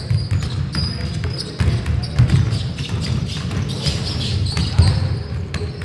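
Basketball being dribbled on a hardwood gym floor, repeated thuds, with sneakers squeaking on the court as players run.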